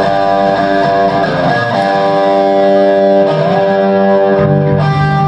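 Live rock band playing, with sustained distorted electric guitar notes and chords changing every second or two; the bass drops out for a few seconds in the middle and comes back in near the end.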